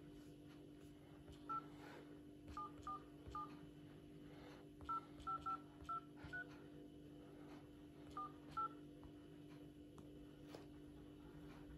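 Touch-tone (DTMF) keypad beeps from a smartphone's dialer as a phone number is keyed in: about eleven short two-note beeps at an uneven pace, in small clusters, over a faint steady hum.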